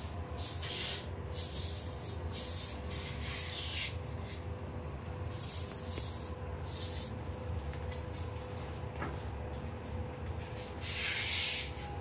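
A hand rubbing along a self-adhesive velcro strip to press it onto a window frame, in several short swishes, the loudest near the end, over a steady low hum.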